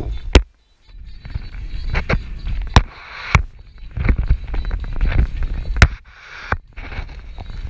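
Strong wind buffeting the camera microphone: a heavy, uneven rumble broken by irregular sharp pops and cracks, with a short dropout about half a second in.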